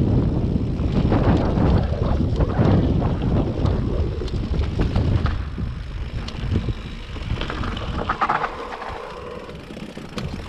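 Wind buffeting an action camera's microphone over the rumble and rattle of an electric mountain bike riding a rough stony track. It gets quieter a little past halfway.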